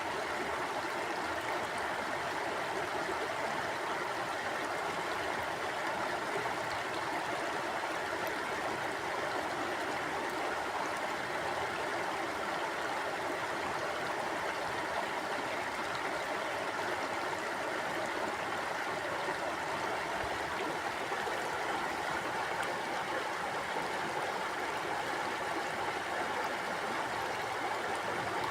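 Mountain stream flowing over rocks: a steady rushing and burbling of water that holds even throughout.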